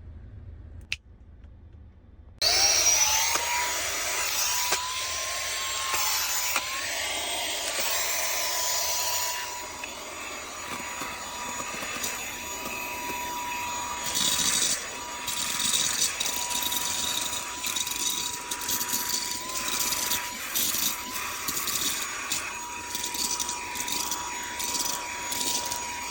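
A small handheld car vacuum cleaner switched on about two seconds in. Its motor spins up with a rising whine and then runs steadily at a high pitch. Irregular crackles and rattles come in over the second half.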